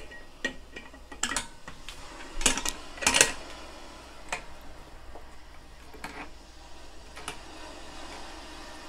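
Scattered metallic clicks and clinks as the copper still's column and clamp are handled and fitted onto the pot: about eight sharp knocks, the loudest cluster in the first three or four seconds, then fewer and softer.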